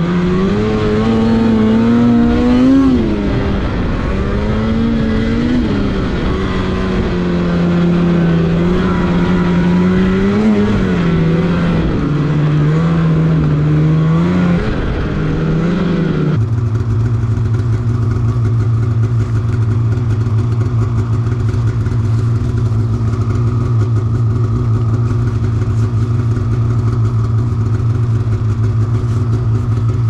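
Snowmobile engine running under way on a trail. Its pitch rises and falls with the throttle for the first half, then, after an abrupt change, it holds a steady lower drone at cruising speed.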